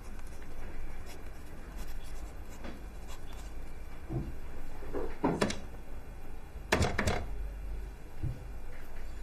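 Small objects being handled on a table: scattered light clicks and knocks, the loudest clusters about five and seven seconds in, over a low steady room hum.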